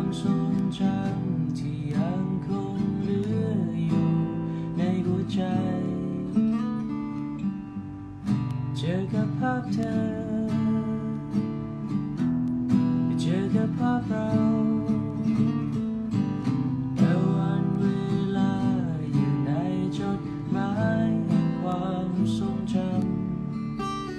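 Acoustic guitar being strummed, playing a slow song.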